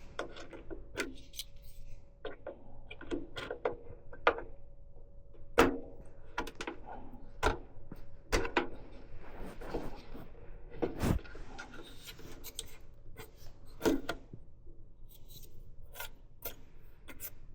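Scattered light clicks, taps and plastic rubbing from handling DDR5 memory sticks at a motherboard's RAM slots, with a denser stretch of rubbing and scraping about halfway through.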